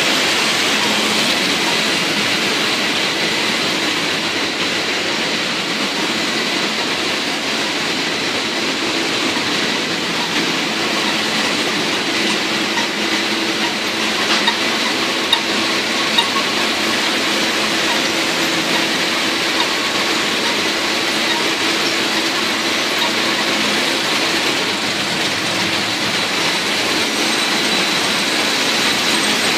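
Hop processing machinery running steadily: a continuous mechanical rumble and clatter with a faint hum, and a few sharp clicks about halfway through.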